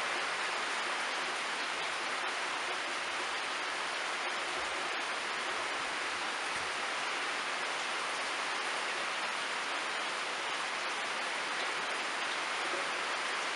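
Steady rain falling, an even hiss with no let-up, with a couple of faint ticks about four and five seconds in.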